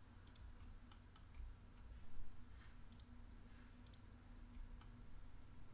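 Faint computer mouse clicks, a few scattered ones with some in quick pairs, over a low steady hum.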